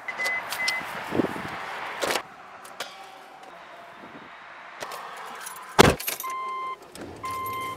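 A car being got into: keys jangling, two short electronic beeps at the start, then a car door shutting with a loud thump about six seconds in. After it a two-tone warning chime from the car sounds twice.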